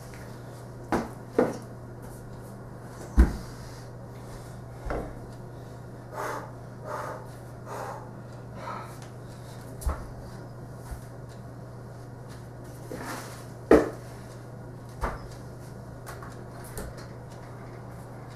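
Irregular knocks and thumps of a plastic bucket and a crutch on a wooden floor, two of them loud (about three seconds in and again near fourteen seconds), with a few soft scrapes between, over a steady low hum.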